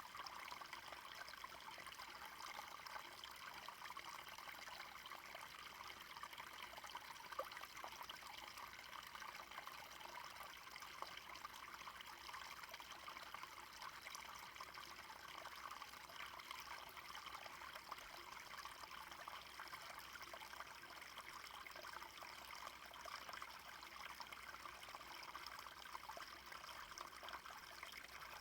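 Small brook flowing, a steady, unbroken trickle of running water.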